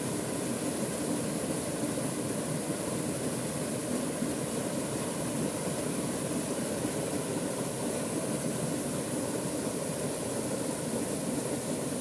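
Small waterfall pouring into a rock pool: a steady, unbroken rushing of falling water.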